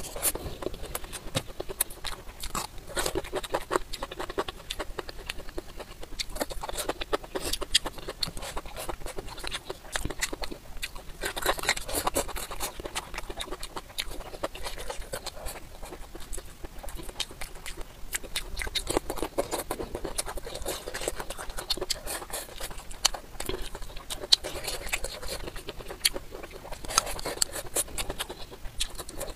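Mouth-eating sounds: chewing and crunching of crisp bamboo shoots, many small clicks and crunches that come in denser bursts with each new mouthful.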